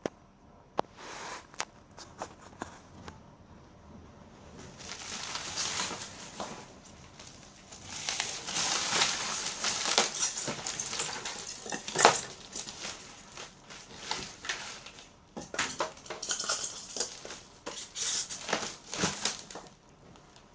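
Packaging being handled: rustling and crinkling in several long stretches, with scattered clicks and light knocks.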